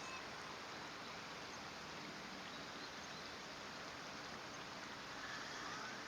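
Steady rushing of a stream or flowing water, with a few faint short bird chirps near the end.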